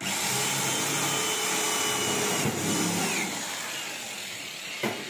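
Corded electric hand drill boring into sheet metal, starting abruptly and running steadily with a high whine, easing off after about three seconds. A sharp click near the end.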